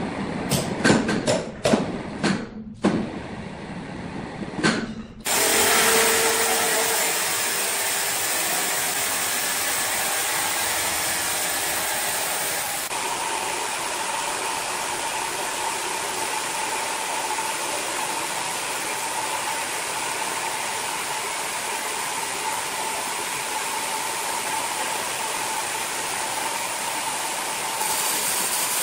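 A quick series of wooden knocks and clatters as a heavy sawn slab is hauled off the log, then a horizontal band sawmill cutting lengthwise through a large log: a steady, loud sawing noise, with a steady whining tone joining it about halfway through.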